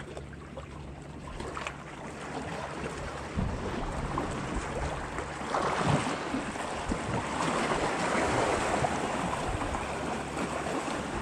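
Wind buffeting the microphone over small waves lapping against the rocks of a breakwall, a steady wash that gets louder about halfway through.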